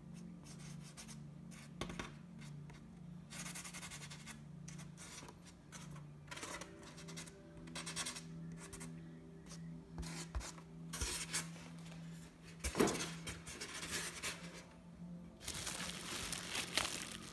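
Quiet background music with low held notes that step from pitch to pitch, broken by several short scratchy rubbing noises. The rubbing comes in bursts and is loudest near the end.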